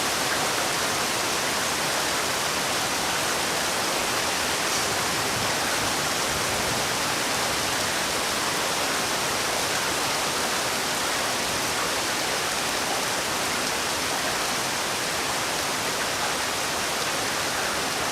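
Heavy rain falling steadily, an even hiss with no thunder or separate drops standing out.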